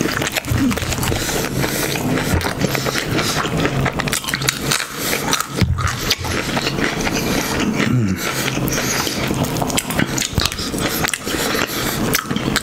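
Loud, close-miked chewing of a chicken sandwich and macaroni, with dense wet mouth clicks and smacks throughout. Twice there is a short, low, falling hum.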